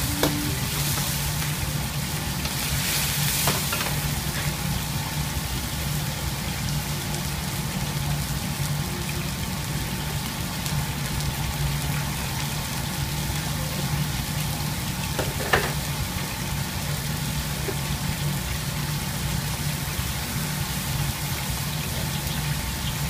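Chilli-oil sauce with ginger and scallions sizzling and bubbling steadily in a wok over a steady low hum, stirred with a ladle at the start. A sharp tap comes about three and a half seconds in and again about fifteen seconds in.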